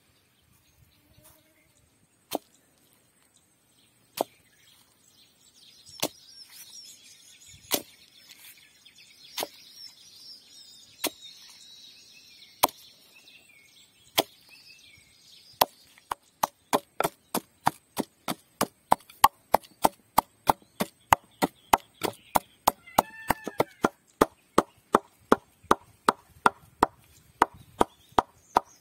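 Wooden pestle pounding onions and dried red chillies in a wooden mortar, making lunu miris. At first single knocks come about every second and a half; about halfway in they turn into steady, fast pounding at roughly three strokes a second.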